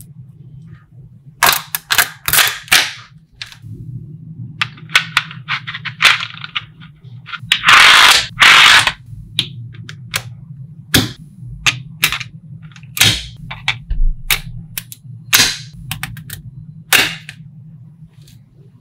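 Small magnetic balls clicking and snapping together, an irregular run of sharp clicks with a longer clattering rattle about eight seconds in.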